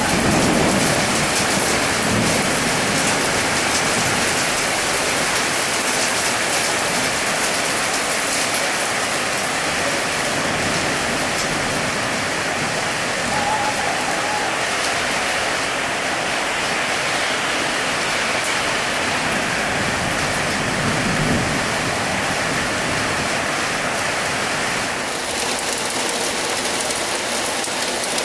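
Heavy rain pouring steadily onto hard surfaces in a storm, with a low rumble shortly after the start and again about 21 seconds in.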